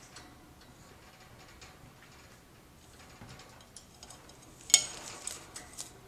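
A cockatiel moving and turning around in a shallow plastic birdbath: light scattered clicks and taps against the dish, with one sharper, louder tap about three quarters of the way through.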